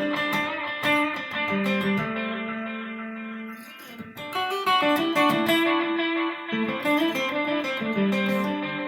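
Electric guitar playing picked notes and chords, heard after being recorded and played back through standard cassette tape deck heads with a pressure pad on the recording head. The playing eases off briefly a little before the middle, then comes back strongly.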